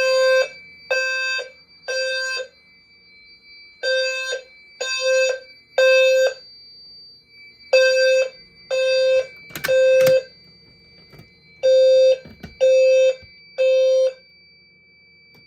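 Fire alarm horns and sounders sounding the temporal-3 evacuation pattern: three half-second blasts, a pause, then three more, repeating, after a pull station has been pulled. A steady high-pitched tone runs underneath, and a couple of sharp clicks come about ten seconds in.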